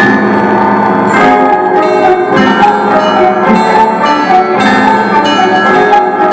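A set of bells rung in a fast pattern, struck a few times a second, with many pitches sounding at once and ringing on over each other.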